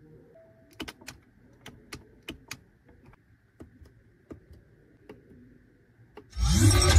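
A series of sharp clicks from a car's touchscreen and centre-console buttons and drive-mode roller being pressed, with a short beep soon after the start. Near the end comes a brief, loud sound with a falling pitch.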